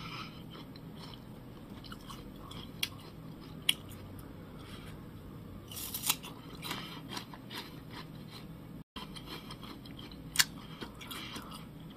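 Crisp Naju pear being bitten and chewed close to the microphone: scattered wet crunches, with a louder bite about six seconds in.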